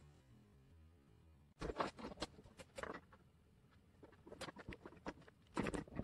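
Short clicks and taps of small parts of a 1:32-scale RC model truck being handled and worked apart, in two quick clusters starting about a second and a half in.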